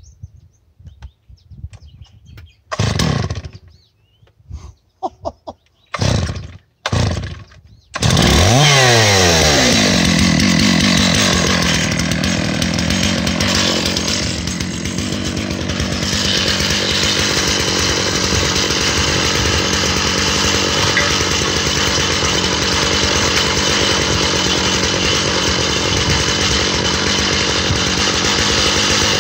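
Stihl 660 chainsaw with a 36-inch bar and ripping chain on a Granberg chainsaw mill: a few short sputters as it is pull-started, then it catches about eight seconds in, revs up and runs steadily under heavy load, ripping a cut through green hickory.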